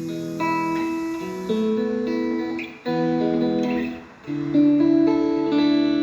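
Squier Classic Vibe 70s Stratocaster electric guitar played with a clean tone: chords and single notes picked and left ringing, changing every second or so, with short breaks about three seconds in and again just after four seconds.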